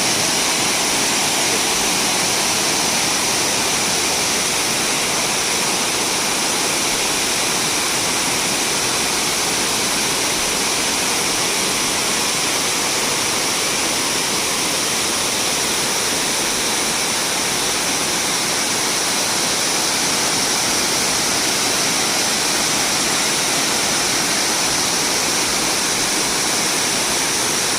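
Waterfall pouring steadily: an even, unbroken rush of falling water with no change in level.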